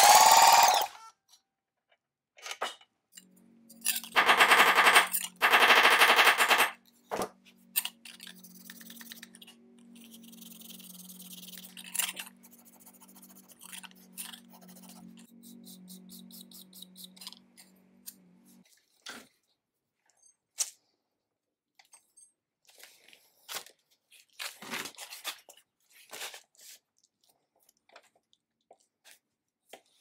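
A 1929 Maytag Multi-Motor single-cylinder two-stroke engine running, cut off less than a second in, then a run of workshop hand-work sounds: two loud bursts of scraping noise, strings of rapid clicks and taps over a low steady hum, and a few single sharp knocks.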